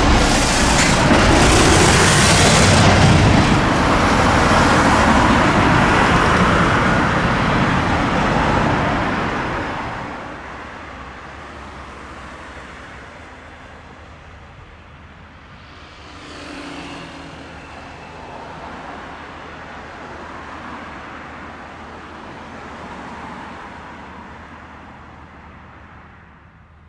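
Road traffic passing close, loud for about the first ten seconds and then falling to a quieter hum. One more vehicle passes about two-thirds of the way through.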